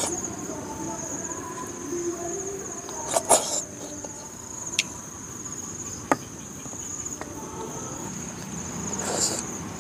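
Wet sucking slurps as stewed freshwater snails are sucked out of their shells, a loud one about three seconds in and another near the end, with a couple of small sharp clicks between. Under it, a steady, high, pulsing insect trill like crickets.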